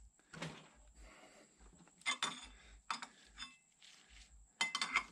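Metal clinking of a socket and bar being worked and lifted off the double cardan driveshaft's centering-ball sleeve in a vise: a few scattered sharp clinks, with the loudest quick run of them near the end.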